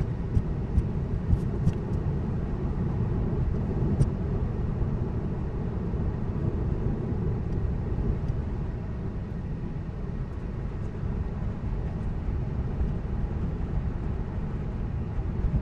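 Road and tyre noise heard inside the cabin of a Tesla electric car driving at speed: a steady low rumble. A few light clicks sound in the first seconds.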